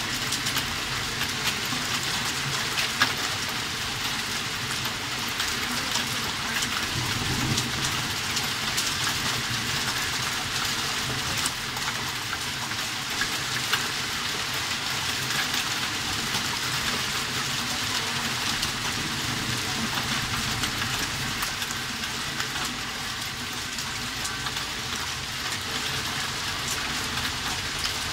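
Hailstorm: hailstones and rain falling steadily on a garden lawn and shrubs, a dense hiss dotted with many sharp clicks of individual stones striking.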